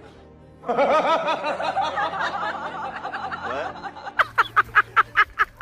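Laughter: a long stretch of wavering, giggling laughter, then a rapid run of 'ha-ha' pulses, about six a second, near the end.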